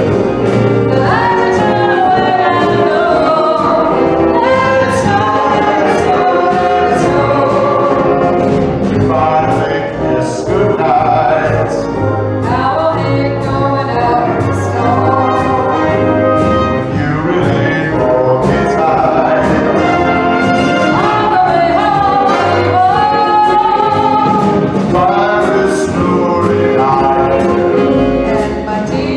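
Live concert music: a wind band playing a swing-style holiday number with singing voices over a steady drum beat.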